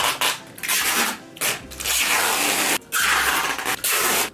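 Wide clear adhesive tape being pulled off its roll in several long rasping strips with short breaks between them.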